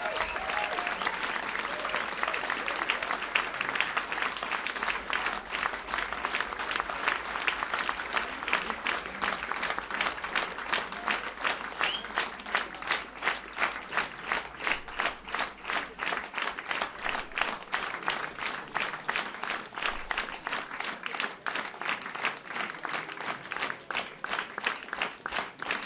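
Concert audience applauding; the scattered clapping settles, about ten seconds in, into steady rhythmic unison clapping at about three claps a second, the kind that calls the band back for an encore.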